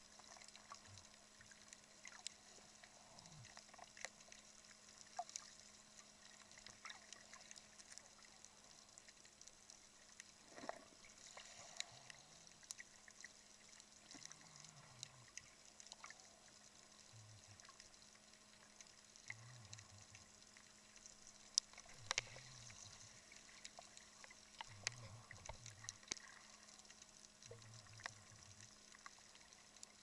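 Faint underwater ambience heard through a camera housing: scattered sharp clicks and crackles over a low steady hum, with short low murmurs every second or two in the second half.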